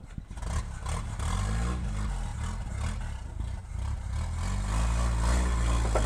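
Engine of a lifted first-generation Toyota 4x4 pickup revving under load as it crawls up a wet rock ledge, rising and falling in pitch a few times and growing louder.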